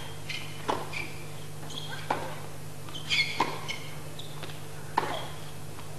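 Tennis rally: racket strings striking the ball back and forth, a sharp pock roughly every second and a half, four times, with short high squeaks of tennis shoes on the court between hits.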